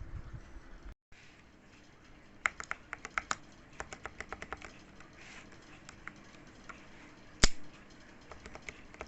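Keys of a retro-style mechanical keyboard being typed: quick bursts of sharp key clicks, thinning out to scattered single presses, with one much louder clack about seven seconds in. The sound cuts out completely for a moment about a second in.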